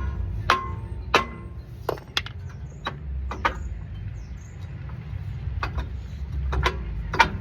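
A stuck rear brake rotor on a 2007 Kia Sorento is being tapped to free it from the hub: about ten sharp metallic knocks, each with a short ring. They come a couple a second at first and grow sparser, over a steady low rumble.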